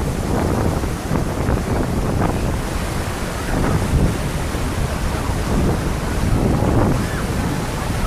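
Wind buffeting the microphone over surf washing onto the shore of the Sea of Azov: a steady, rough rush of noise.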